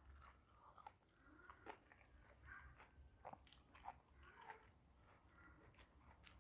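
A person chewing and biting food close to the microphone: faint, irregular crunches and wet mouth smacks.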